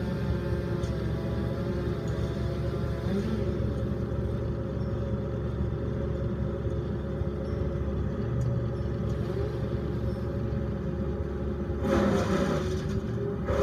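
Engines of tree-removal equipment run at a steady speed, making a constant drone. About twelve seconds in, a louder rushing sound rises as branches are fed into the wood chipper.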